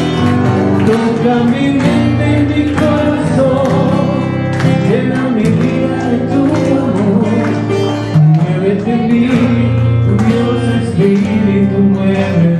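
A song playing, a voice singing over instruments.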